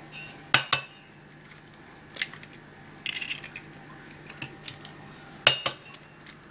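Eggs knocked against the rim of a stainless steel mixing bowl to crack them open: sharp knocks, a quick double tap about half a second in and another near the end, with lighter clicks of shell in between.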